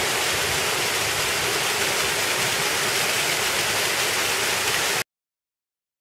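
Small waterfall: water running and splashing in thin streams down a rock face, a steady rush that cuts off abruptly about five seconds in.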